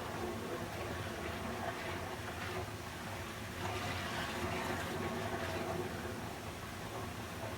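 Continuous rush of flowing water, swelling and easing slightly every second or two.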